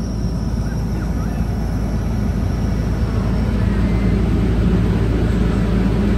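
A vehicle engine running with a steady low rumble, slowly getting louder.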